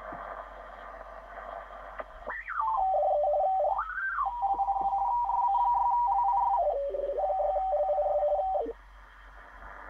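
ICOM IC-R8500 communications receiver in upper-sideband mode, its speaker giving band hiss and then, about two seconds in, a carrier's beat-note whistle. As the tuning knob turns, the whistle glides down, rises and falls once, and steps between several pitches, then cuts off near the end, leaving hiss. The receiver is tuning cleanly after the repair of its PLL lock failure.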